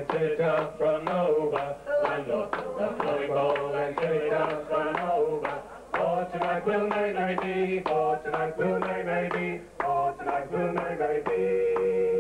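Folk group singing live, a woman's and men's voices together in harmony, over a steady rhythmic beat.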